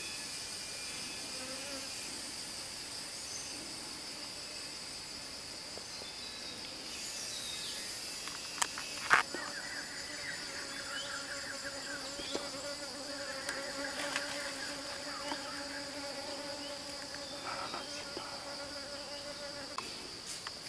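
Steady high-pitched insect chorus in tropical forest. Two sharp clicks come a little under halfway, and just after them a steady droning buzz like a fly or bee close to the microphone sets in and runs most of the rest of the way.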